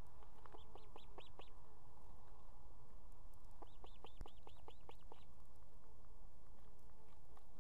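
Osprey calling at the nest: two runs of short, high chirps, each note rising then falling, about five notes near the start and a longer run of about eight notes a few seconds later.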